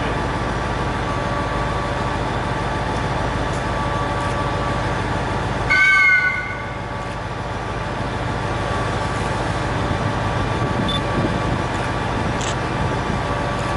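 Steady hum of a train standing at a railway station, with a few constant tones in it. About six seconds in comes one short, high-pitched toot lasting about half a second, dropping slightly in pitch.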